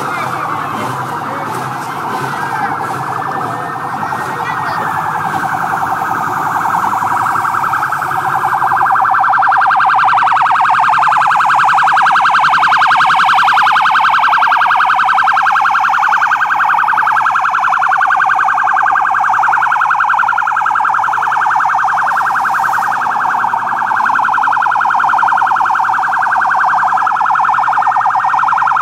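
Several sirens wailing at once, their rising and falling tones overlapping, growing louder about eight seconds in.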